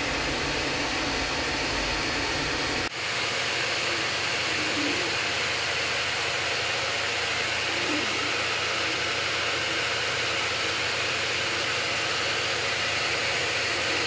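FDM 3D printer running a print: the steady whir and hiss of its cooling fans with a low motor hum underneath. The low hum changes abruptly about three seconds in.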